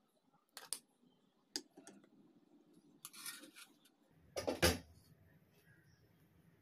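Metal ladle clinking and scraping against steel cookware while curry is served, a few light clicks in the first two seconds, then a louder clatter about four and a half seconds in.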